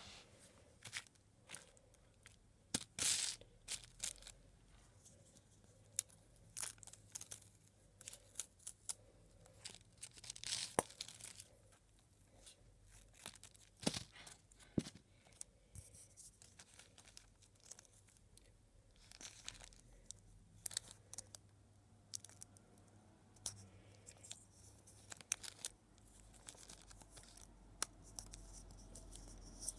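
Washi tape peeling and tearing as it is handled, with scattered short crinkles and clicks as it is wrapped and pressed onto a decorative egg.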